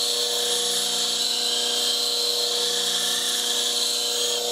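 Slow-speed bench grinder with a CBN wheel running with a steady hum while the tip of a small spindle gouge is ground freehand against it, giving a steady hiss of steel being ground.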